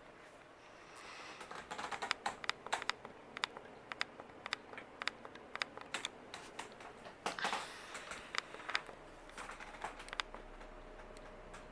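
Fasco Gulf Stream six-blade ceiling fan running on high, its motor giving a faint steady hum. Irregular light clicks and ticks sound throughout.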